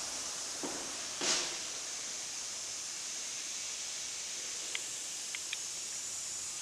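Steady background hiss, with a brief soft rustle about a second in and a few faint high ticks near the end.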